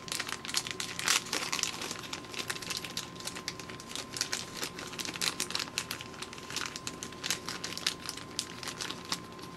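A small plastic parts packet crinkling as it is opened and picked apart by hand, a continuous run of sharp crackles.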